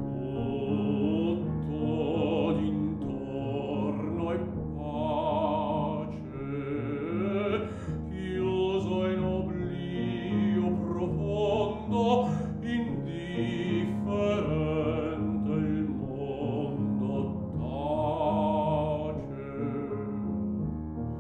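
Baritone singing an Italian art song in classical style, with vibrato, over piano accompaniment that repeats soft chords beneath the vocal line.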